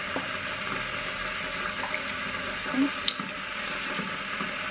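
Electric kettle heating water, a steady hiss, with a few light clicks about two and three seconds in.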